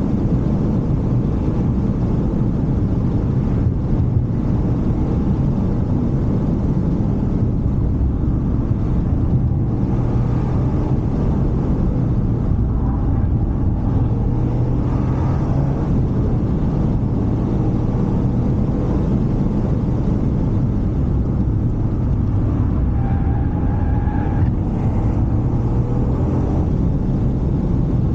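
Toyota GR Yaris driving, heard from inside the cabin: a steady low rumble of its turbocharged 1.6-litre three-cylinder engine and the road, with faint engine tones rising and falling now and then.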